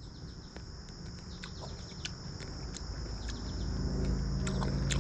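Insect chorus, a steady high-pitched trilling, with close, sharp clicks of chewing. A low hum grows louder over the last second or two.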